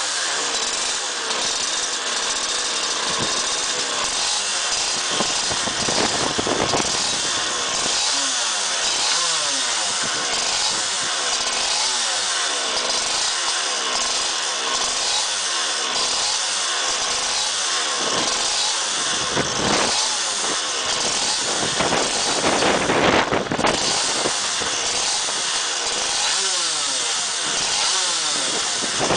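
Suzuki GP125 bucket racer's two-stroke single-cylinder engine revving hard, its pitch climbing and dropping again and again as it runs up through the gears. A louder, rougher burst comes about three-quarters of the way through.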